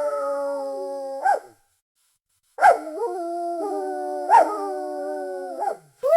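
A dog howling: long howls held at a steady pitch, with about a second's pause between the first two and a third howl starting at the very end.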